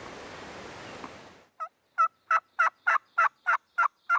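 A steady windy hiss stops suddenly about a second and a half in. It is followed by a series of about a dozen wild turkey yelps, roughly three a second, each note falling in pitch.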